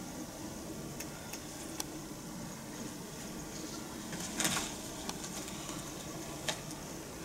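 Quiet stage room tone with a few faint clicks. About four and a half seconds in, a short scuffing rustle as footsteps reach a bag on the stage floor and it is handled.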